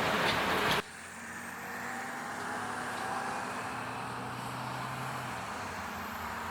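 Railway train standing at a station platform. A loud rushing hiss cuts off abruptly about a second in, leaving a steady low machinery hum with a faint whine.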